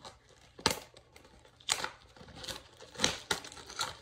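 Trading-card pack wrapper crinkling and tearing as it is opened by hand, in a series of about six short rustles.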